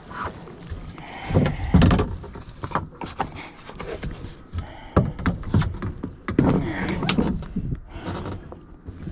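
Irregular knocks, scuffs and rumbling handling noise as a hooked trout is netted from a kayak.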